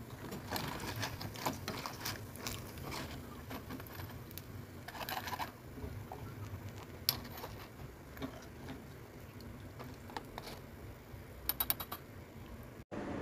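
Freshly fried potato crackers being lifted from hot oil and drained in a metal wire strainer: scattered crackles of oil and clicks and scrapes of the strainer, with a quick rattle of clicks near the end.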